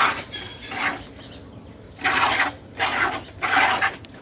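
Cow being milked by hand: squirts of milk hit a metal pail in a series of short, separate spurts, with a pause near the middle.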